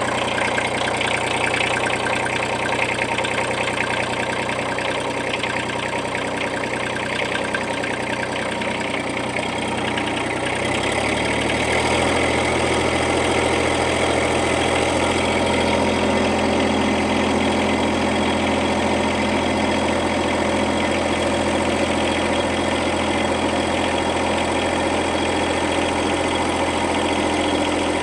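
Mini excavator engine running steadily. About eleven seconds in, its note shifts and then holds steady at a new engine speed.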